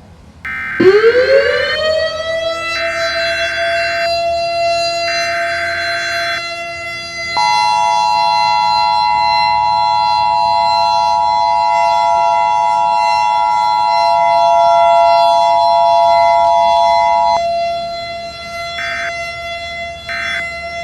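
Civil defense siren winding up and then holding one steady tone. Over it come three short bursts of EAS digital header data tones in the first six seconds, then the two-tone Emergency Alert System attention signal for about ten seconds, then two brief end-of-message data bursts near the end. Together they mark the start of an emergency alert broadcast.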